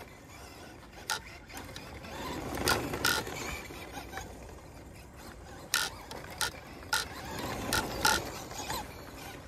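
Traxxas Modified (Mudboss) electric RC car running on dirt, its motor and tyres making a low whirr that swells twice as it passes. Through this comes a scatter of about eight sharp mechanical clicks and rattles.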